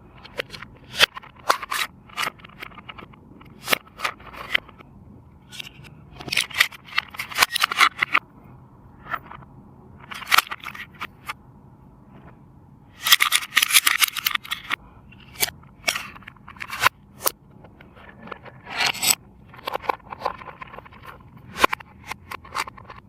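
Toy packaging being handled and opened by hand: irregular clicks, rustles and scrapes, with a longer, louder rustling stretch about halfway through.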